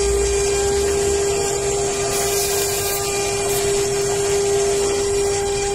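Handheld brush-cutter-style rotary tiller running steadily at high speed, its motor giving a constant high drone while the tines churn through dry soil.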